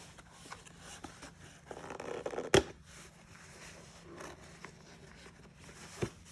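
Cardboard box being handled and worked open by hand: light scraping and rustling, with one sharp snap or knock about two and a half seconds in.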